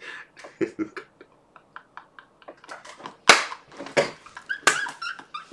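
A man laughing hard in short, breathless bursts, with two sharp, loud outbursts about three and a half and nearly five seconds in.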